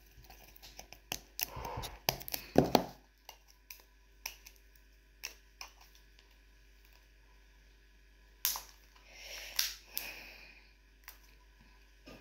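Irregular clicks, taps and knocks of plastic slime tubs and packaging being handled and pried at while they are hard to get open. The loudest knocks come about two to three seconds in, with a few more clicks and a soft rustle near the end.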